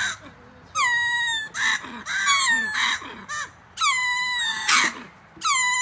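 Ring-tailed lemurs calling: loud repeated wailing calls, each sliding down in pitch and then holding, about every second and a half, with shorter calls in between.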